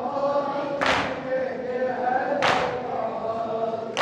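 A group of men chanting a nauha lament in unison, with matam strikes, open hands beaten on chests together, landing about every second and a half.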